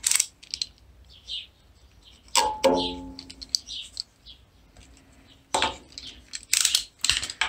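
Clicks and knocks of a snap-off utility knife being handled while the end of the bowstring's serving thread is cut off, with a short pitched tone about two and a half seconds in and a cluster of sharp clicks near the end.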